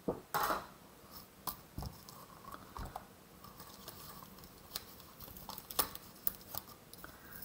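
Light clicks and taps of clear plastic die-cutting plates and a thin metal die being handled while die-cut cardstock pieces are picked out, with a louder clack about half a second in.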